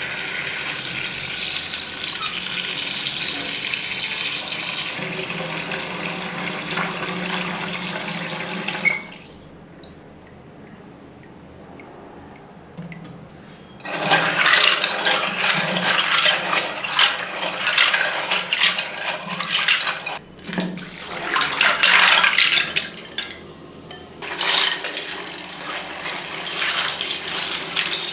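Water running from a tap, steady at first, then stopping about nine seconds in. From about fourteen seconds it runs again unevenly and splashes, as keycaps are rinsed under the stream.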